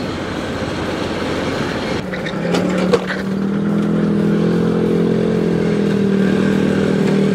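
Motorcycle riding on a rough road with wind and road rush. From about two and a half seconds the steady drone of a large engine comes in and holds, a little louder, as the bike draws alongside a loaded truck.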